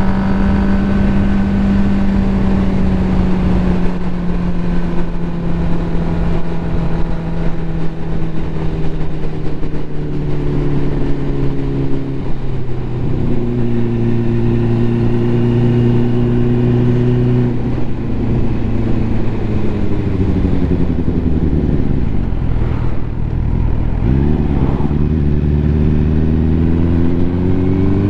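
Ducati motorcycle engine running under way, its revs easing down slowly for the first half, holding steady for a few seconds, dropping again, then climbing back up near the end.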